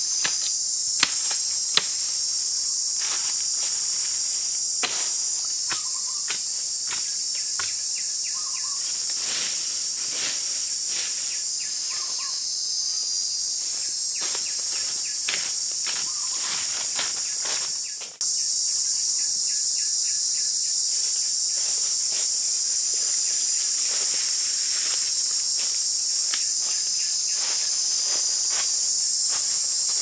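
Steady high-pitched drone of a chorus of insects, broken by many short, scattered knocks and rustles from machete chopping and steps in dry leaf litter. The drone drops out for a moment about eighteen seconds in, then carries on.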